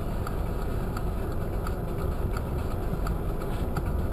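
Car engine idling, heard from inside the cabin, with the indicator relay clicking evenly about one and a half times a second.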